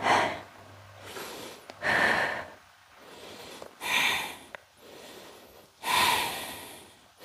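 Yoga instructor's forceful breaths close to the microphone, four strong rushes of air about two seconds apart with softer breathing between, paced with pulsing bent-knee leg lifts on all fours.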